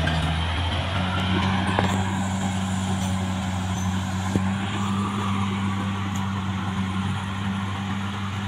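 CAT D6R XL bulldozer's diesel engine running steadily as the machine backs away, with a couple of short clicks partway through.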